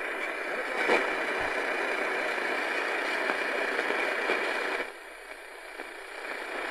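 AM static hiss from a Sangean PR-D19 portable radio's speaker, tuned to a weak distant station at 760 kHz on the medium-wave band that is buried in the noise. There is a click about a second in, and just before five seconds the hiss drops sharply, then builds back up.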